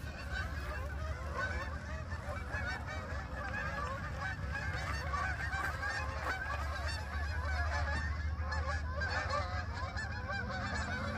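A large flock of Canada geese honking in flight overhead, many calls overlapping into a continuous chorus.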